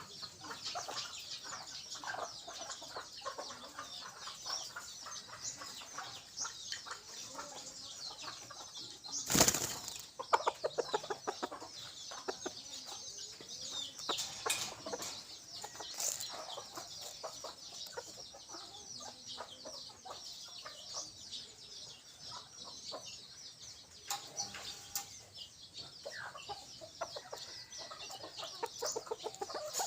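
Junglefowl decoy hen clucking in quick runs of short notes. A brief loud rustle, like flapping wings, comes about nine seconds in.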